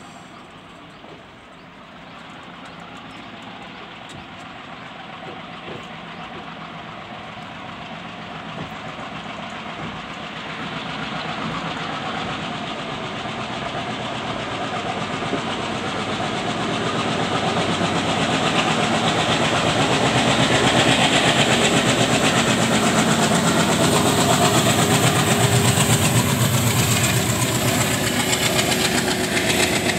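Coupled Indian Railways WDM3D ALCO-type diesel locomotives, with 16-cylinder ALCO 251 engines, approach under power and pass close by, their engines chugging hard. The sound grows steadily from faint to loud and is loudest in the last ten seconds or so as they draw level.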